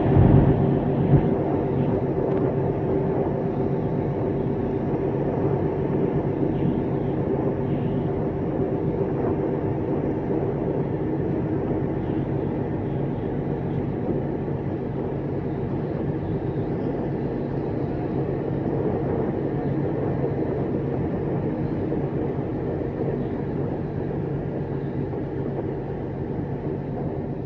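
Steady drone of a river ferry's engine with the rush of water, heard on board while under way; a couple of short knocks about a second in.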